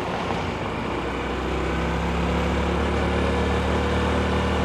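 Honda CT125's single-cylinder four-stroke engine running at a steady road speed, heard from the bike itself, with wind and road noise. It picks up slightly over the first couple of seconds, then holds steady.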